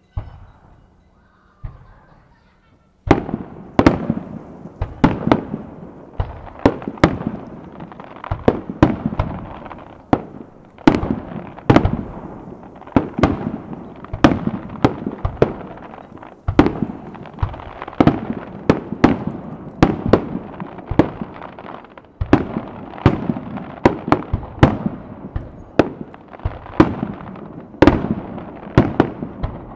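Aerial firework shells launching and bursting in quick succession: two dull thumps in the first couple of seconds, then from about three seconds in a steady run of sharp booms, a little more than one a second, with echoes rolling between them.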